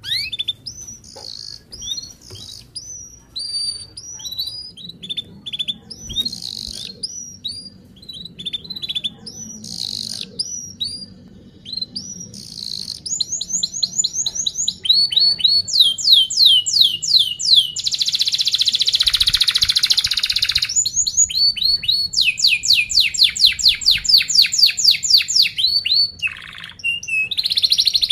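Domestic canary singing: spaced falling chirps at first, then, from about halfway in, louder fast rolling trills of rapidly repeated notes, with a dense buzzy stretch partway through.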